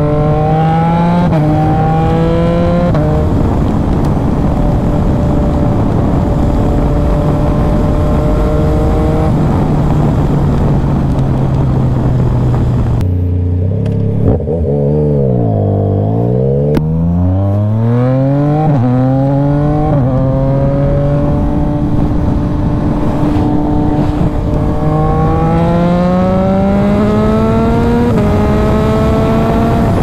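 Yamaha MT-09's inline three-cylinder engine heard from the rider's seat: it pulls hard through the gears with quick upshifts, holds a steady cruise, then slows with the revs falling to a low point about halfway through. It pulls away again, climbing through the gears, cruises briefly and revs up once more near the end, over rushing wind and road noise.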